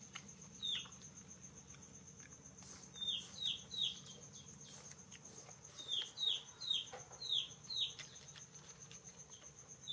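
A bird chirping in quick runs of three to five short notes that fall in pitch, several times over, above a steady high insect drone.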